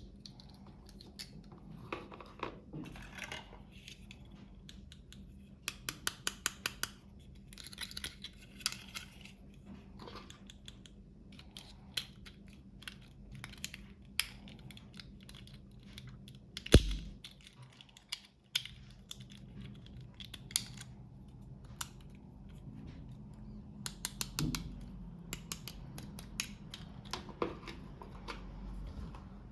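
Close-up unboxing handling sounds of small plastic toy packaging: scattered clicks and taps, crinkling, and a quick run of about six clicks. One sharp knock, the loudest sound, about halfway through.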